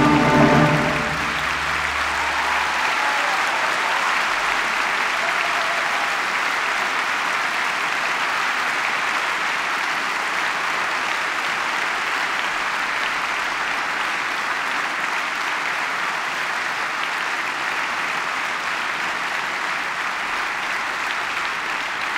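Audience applauding steadily in a concert hall. The orchestra's final chord dies away in the first couple of seconds, under the start of the applause.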